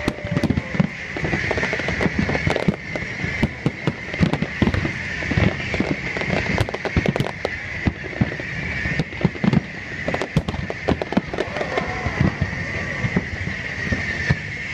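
Fireworks display: shells bursting in a rapid, irregular run of bangs and crackles.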